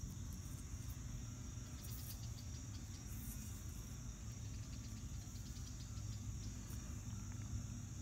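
Insects chirring outdoors in a steady high drone, over a faint low rumble.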